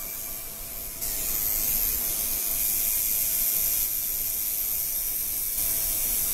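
Electric tattoo machine running steadily, a faint motor buzz under a constant high hiss.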